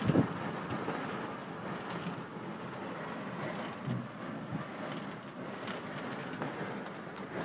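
Strong blizzard wind of about 40 mph blowing steadily, a constant rushing noise, with a couple of low thumps from gusts: one right at the start and one about four seconds in.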